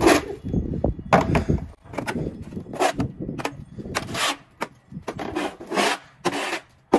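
Plastic snow shovel scraping thin packed snow and ice off a concrete walkway in a series of short, quick strokes, about a dozen of them.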